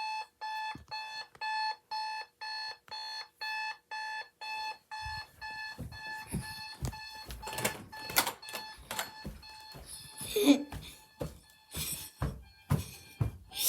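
Electronic alarm clock beeping, a high tone about twice a second. About five seconds in the beeping fades under a louder, irregular jumble of knocks and thumps.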